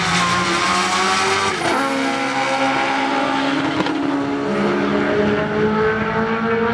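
Two drag-racing cars' engines at full throttle down the strip, pitch climbing through each gear and dropping sharply at the shifts, first about 1.7 seconds in.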